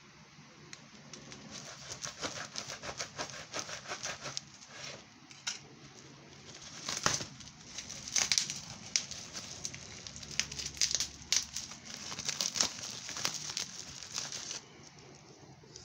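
Plastic bubble wrap crinkling and crackling as it is handled and unwrapped by hand, in quick irregular runs of sharp crackles. It stops suddenly about a second before the end.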